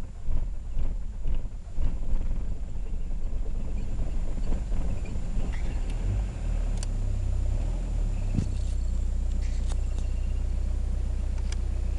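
Car engine running with a low, steady drone, uneven for the first two seconds and steadier from about halfway, with a few faint clicks above it.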